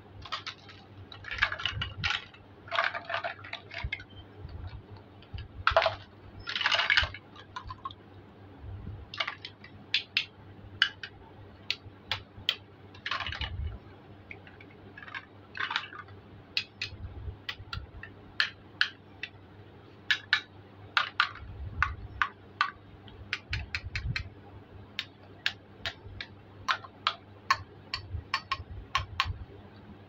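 Hard plastic toy fruit and vegetable pieces being handled: picked up, knocked together and set down on a mat and in a plastic basket. A few longer crackly clatters come in the first seven seconds, then a run of short sharp clicks and taps.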